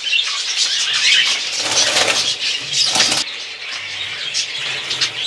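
Budgerigars chirping and chattering, many short calls overlapping, the chatter thinning abruptly about three seconds in.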